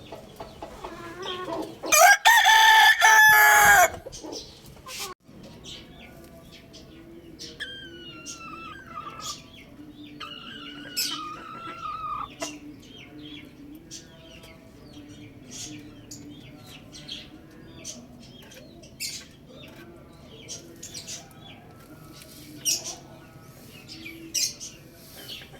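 A rooster crows once, very loud and drawn out, about two seconds in, followed by two quieter crows. After that come short clucks and bird chirps.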